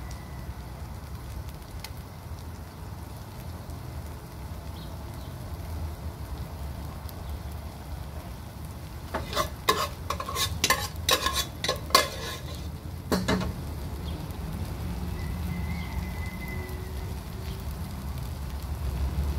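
A metal slotted skimmer scooping boiled rice from a pot into a pan, with a run of sharp clinks and knocks of metal on cookware about nine to thirteen seconds in. A steady low rumble runs underneath.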